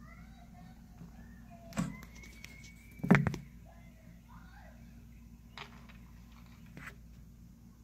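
A few sharp knocks over a steady low hum. The loudest is a quick cluster about three seconds in, with lighter single knocks before and after.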